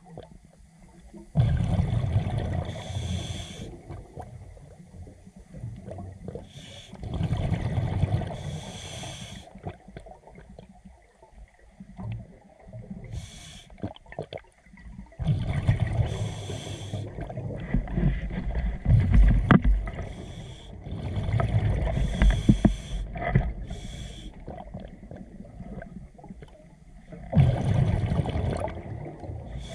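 Scuba diver breathing through a regulator, heard underwater: low gurgling rushes of exhaled bubbles alternating with the hiss of inhalation, one breath about every five to six seconds.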